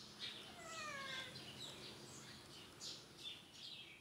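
A cat gives one falling meow about half a second in, faint, while small birds keep chirping.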